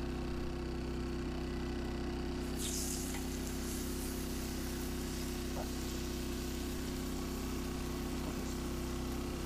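Steak sizzling in a hot pan of potatoes on a grill, the hiss starting about two and a half seconds in as the meat goes in. Underneath, a steady low mechanical hum.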